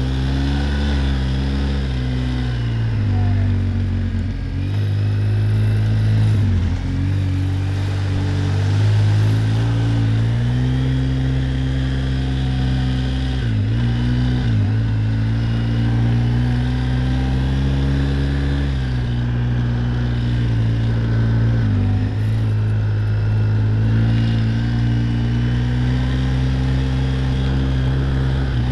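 Quad bike (ATV) engine running steadily under way, its note rising and falling with the throttle, with several brief drops as the throttle is eased.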